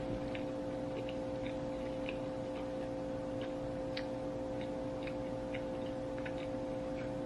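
Soft, irregular clicks of a person chewing food, over a steady hum with two constant tones.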